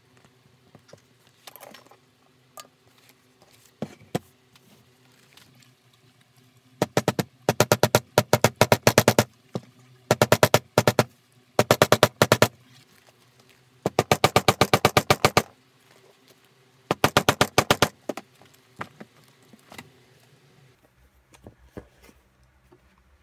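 Small metal hammer tapping glued leather seams against a poly cutting board to set the bond. The taps come in five quick bursts of one to two seconds each, with light handling clicks between them.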